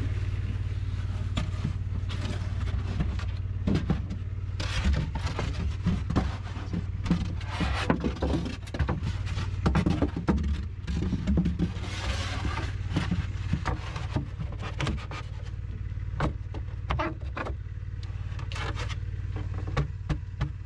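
An engine running steadily with a low hum underneath, while panels scrape and knock against a wooden formwork as they are slid into place. The knocks are irregular and come most thickly in the middle.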